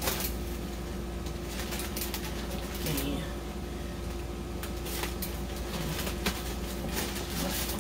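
Scissors snipping through a plastic courier mailer bag: irregular sharp cuts and crinkles of the plastic, over a steady hum.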